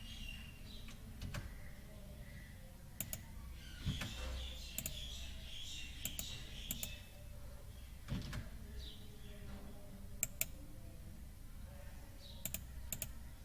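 A few scattered computer mouse clicks, with a low steady hum underneath.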